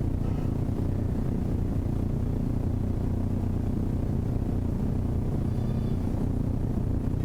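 Steady low rumble of background noise, even throughout, with faint brief higher tones about a third of a second in and again near the end.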